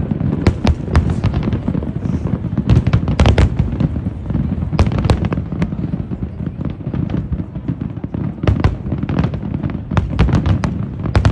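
Fireworks display: rapid clusters of sharp bangs and cracks over a continuous low rumble of booms.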